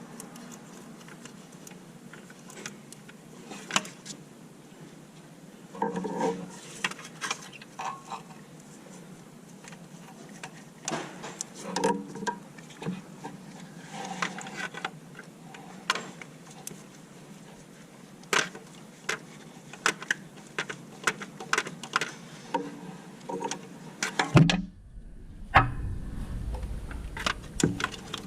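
Metal hand tools and parts clinking and knocking in irregular sharp clicks, with a short low rumble and thump near the end.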